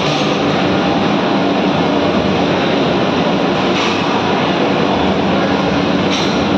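Steady, loud noise of a busy kitchen, with huge cauldrons steaming over open wood fires.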